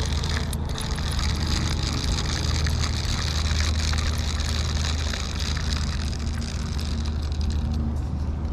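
A steady low engine hum under a broad hiss, holding an even level throughout.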